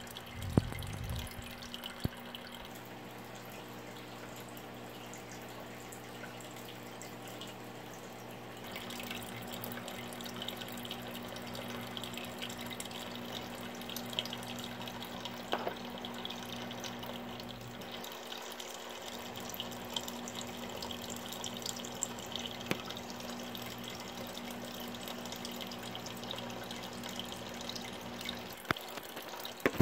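Aquarium water trickling and splashing steadily over a low steady hum of a filter pump, growing a little louder about nine seconds in. A few short knocks, the loudest a little under a second in.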